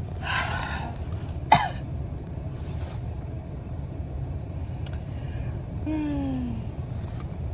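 A person coughs and clears her throat, then makes a short falling vocal sound near the end, over a steady low rumble of an idling engine. There is a sharp click about a second and a half in.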